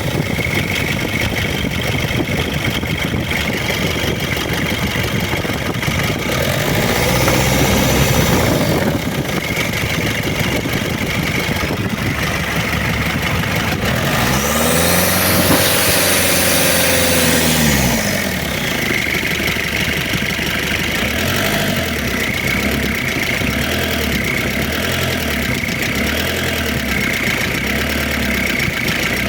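Used diesel engine running with a rough, loud noise, revved up and back down twice, about a quarter of the way in and again around the middle, then settling to idle. The noise marks the engine as unsound: one to return to the seller.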